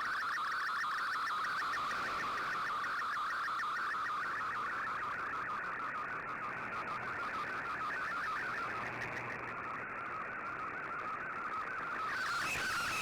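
Shortwave radio receiving an MFSK digital data transmission: a fast, steady warble of stepping tones over background hiss.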